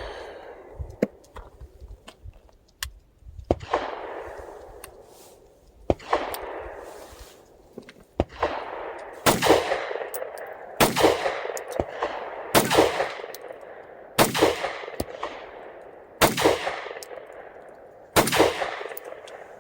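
Taurus G3C 9mm pistol firing single shots at a slow steady pace, about nine shots one to two seconds apart. Each report has a long echo trailing off.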